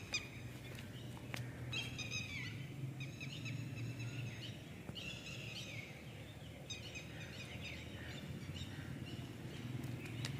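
Outdoor bird calls in several short bursts of quick repeated high notes, over a steady low background rumble. Two small clicks sound right at the start.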